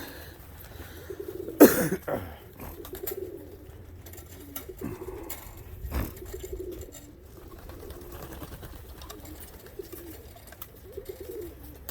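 Homing pigeons cooing in the loft, repeated warbling coos throughout, with scattered sharp clicks and one loud brief sound a little under two seconds in.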